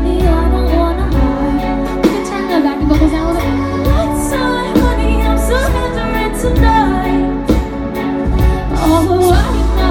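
Live pop band playing, with a woman singing the melody over bass and drums.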